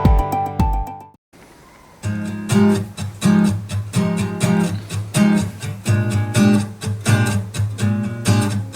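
Music played back through a Panasonic SB-PM08 3-way bookshelf speaker with super woofer. A passage with deep bass notes ends about a second in. After a brief pause, a strummed acoustic guitar starts a steady rhythmic pop intro.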